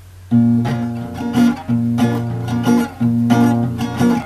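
Acoustic guitar playing an instrumental intro: chords strummed in a steady rhythm over a ringing low bass note, starting about a third of a second in.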